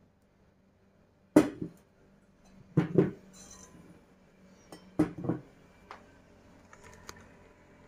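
Enamel teapots and their lids being set down on a perforated metal tray, clinking and knocking. There is a sharp knock about a second and a half in, two pairs of clinks near three and five seconds, and lighter ticks near the end.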